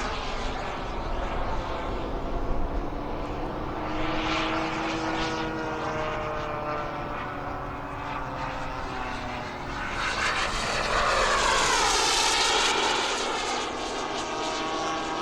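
Radio-controlled model airplane flying, its engine drone gliding slowly in pitch, growing louder and sweeping up and down in pitch about ten seconds in as it passes close by.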